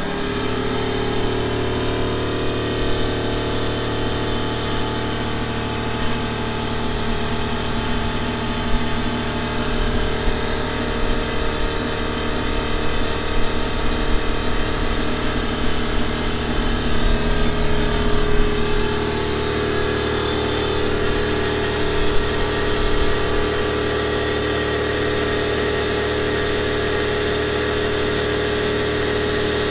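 2TE10M diesel locomotive's 10D100 two-stroke opposed-piston diesel engine running steadily, with a steady hum that holds one pitch throughout.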